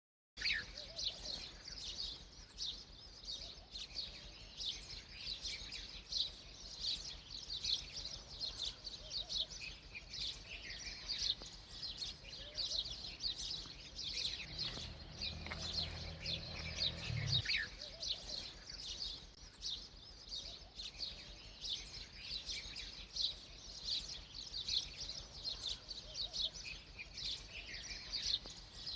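A flock of small birds chirping continuously in quick, overlapping calls. About halfway through, a low hum comes in for about three seconds.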